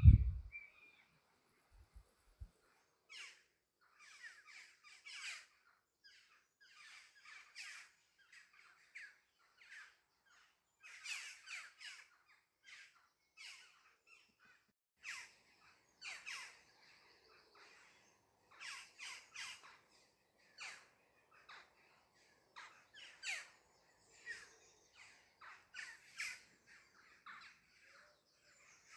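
Birds calling outdoors: a long run of short, separate calls in loose clusters with brief pauses between them. A few low thumps come in the first two seconds, before the calls start.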